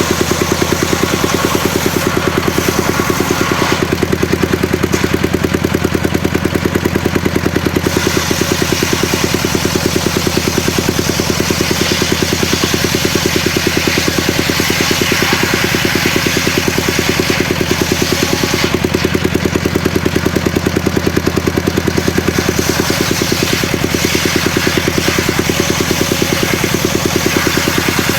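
Engine of a home-built circular saw rig running steadily with a fast, even beat. The higher hiss drops away twice for a few seconds, about four seconds in and again around nineteen seconds.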